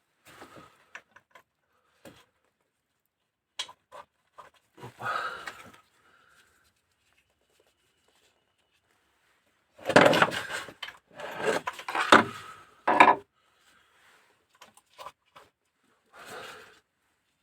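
Hand work on engine parts: scattered light clicks and knocks, with bouts of rubbing and scraping, the loudest and longest from about ten to thirteen seconds in.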